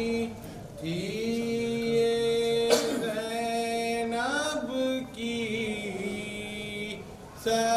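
A man chanting a noha, a mourning elegy, into a microphone, holding long notes that glide between pitches, with short breaks for breath. One sharp knock sounds about three seconds in.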